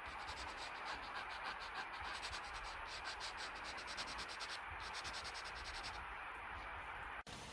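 Drawing tool rubbing on sketchbook paper in rapid, even back-and-forth strokes, as in shading. It cuts off suddenly near the end.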